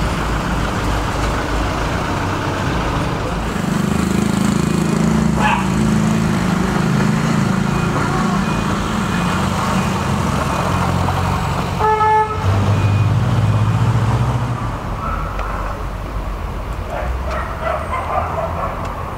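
Street traffic: a vehicle's engine rumble builds and passes, with a short horn beep about twelve seconds in.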